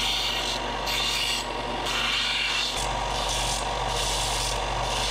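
Bench belt sander running with a steady motor hum while small bent aluminium brackets are pressed against the moving belt several times, each pass a short rasping hiss, cleaning up and smoothing the freshly cut metal.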